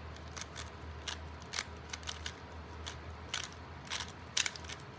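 3x3 Rubik's Cube being scrambled by hand: its plastic layers click as they are turned, in quick, irregular clusters of several clicks a second.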